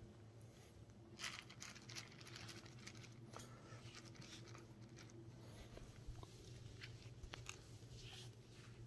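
Faint, scattered clicks and scuffs of a Shetland Sheepdog puppy's claws on a tile floor as she runs about.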